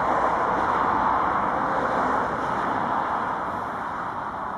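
Boeing 737-800's CFM56-7B turbofan engines at takeoff power, a broad steady jet rush heard from behind as the airliner climbs away. It fades gradually from about two seconds in.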